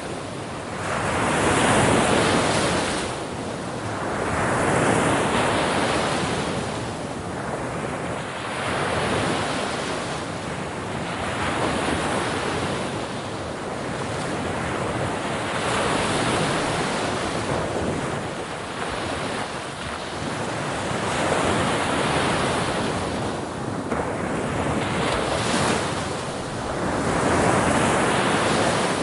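Sea waves breaking on a shore in a continuous wash, each wave swelling and receding every few seconds.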